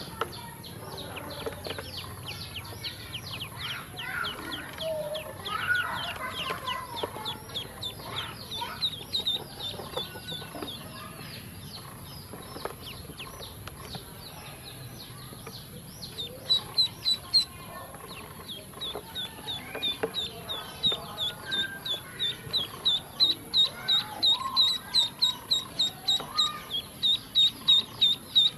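A group of ducklings peeping: long runs of short, high peeps, about three a second and loudest in the second half, with softer, lower calls mixed in.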